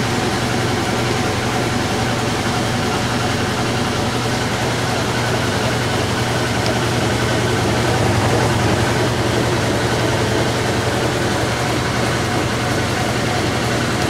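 Whirlpool-built Kenmore direct-drive top-loading washer running, with a steady low motor-and-transmission hum.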